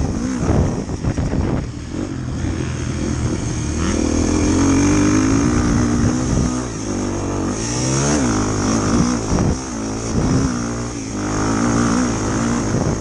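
Motorcycle engine running under way, its pitch rising and falling repeatedly as the throttle is opened and closed, with wind noise over the top.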